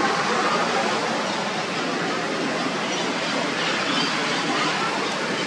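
Steady outdoor background hiss, like wind or rushing water, with a few faint high chirps.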